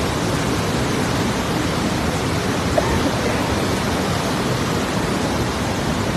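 A muddy flood torrent of a swollen mountain river rushing and churning past in a steady, loud wash of water noise.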